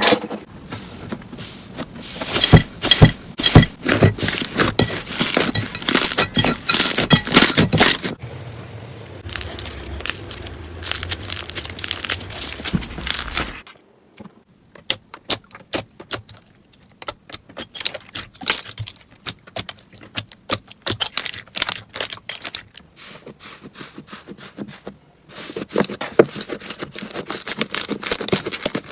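Slime being squeezed and worked by hand, giving dense trains of crackling, popping clicks. The clicking changes abruptly several times as one slime clip gives way to the next, and one stretch is much sparser than the rest.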